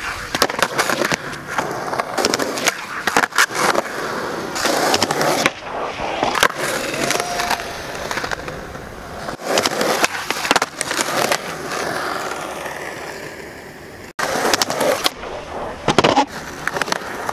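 Skateboards on a concrete skatepark: wheels rolling, broken by repeated sharp clacks of tails popping and boards slapping down on landings during flip tricks.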